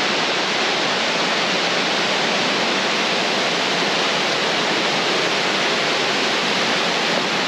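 Steady rush of a large waterfall close by, a loud, even wash of falling water.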